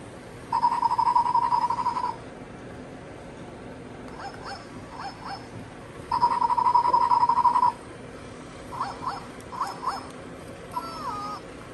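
Kid Connection plush walking pet dog toy playing recorded puppy sounds through its small speaker. Two long steady whines of about a second and a half each, with short yips between them and a wavering whine near the end.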